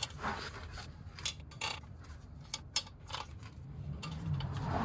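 Irregular light metallic clicks and clinks of steel bolts being handled and set into a transmission bell housing.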